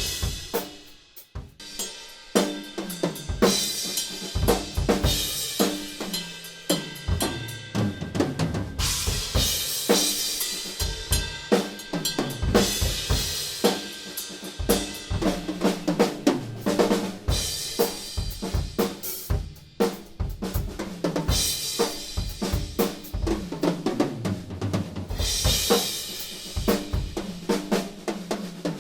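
Yamaha Recording Custom acoustic drum kit being played: snare, bass drum and rolls, with repeated cymbal crashes ringing over the beat. The playing drops away briefly about a second in, then resumes.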